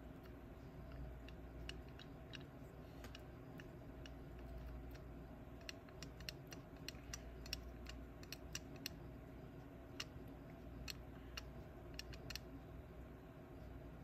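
Faint, irregular small clicks and ticks, clustering in the second half, over a low steady hum, from a soldering iron working the pins of a micro USB charging port on a circuit board.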